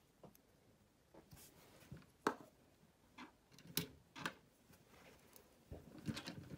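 Small plastic clicks and taps of Lego minifigures and pieces being handled and set down on a tabletop: a scattered handful of sharp clicks, the sharpest about two seconds in, and a quick run of them near the end.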